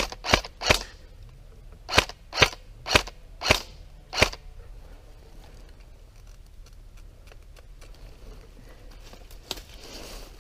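Airsoft gun firing: three quick sharp shots, then five more spaced about half a second apart, then a pause.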